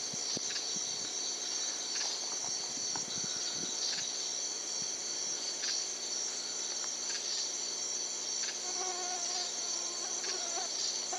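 Night insect chorus: a steady, high-pitched trilling of crickets and similar insects, with faint scattered ticks and rustles over it.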